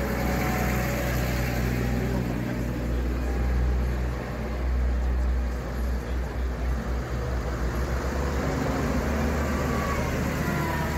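New Holland T7-series tractors' diesel engines running at low revs as the tractors drive slowly past close by, a steady low hum with an unevenly wavering stretch in the middle.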